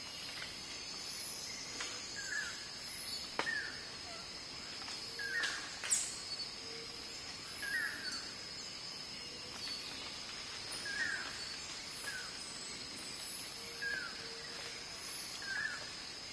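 Forest ambience: a short falling chirp call repeats every one to two seconds over a steady high-pitched hum, with a few sharp snaps, the loudest about six seconds in.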